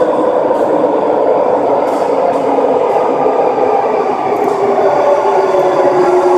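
Vancouver SkyTrain Expo Line train running at a station: a steady rumble with a whine from its linear induction motors that slowly falls in pitch as the train slows.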